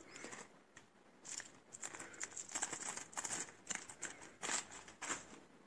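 Small wooden game pieces being tipped back into a thin plastic zip-lock bag. The plastic crinkles and the pieces click lightly against each other, in a string of short, soft rustles and clicks.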